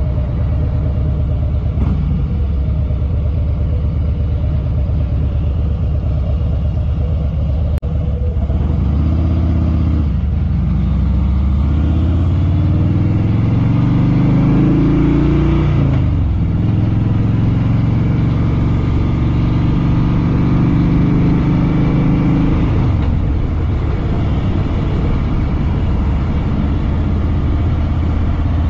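Harley-Davidson Fat Boy Lo's V-twin engine running steadily. About a third of the way in the revs climb for several seconds as it accelerates, then break off at about the middle, as at a gear change. It then runs steadily again, with a drop in revs at about three-quarters of the way through.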